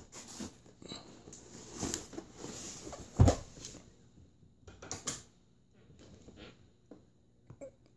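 A cardboard shipping box is handled and shifted on a hardwood floor, with scattered rustles and light taps. One loud, deep thump about three seconds in, as the box comes down on the floor, and a couple of smaller knocks around five seconds in.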